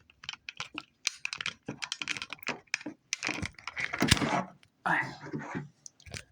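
Close, rapid clicking, knocking and rustling of a camera being handled and taken off its tripod, with louder scraping and rustling stretches about three and five seconds in.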